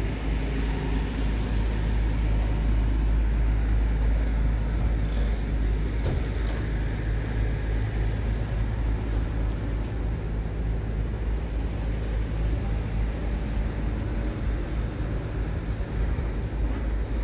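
Scania R tractor unit's diesel engine idling with a steady low hum, with a light click about six seconds in.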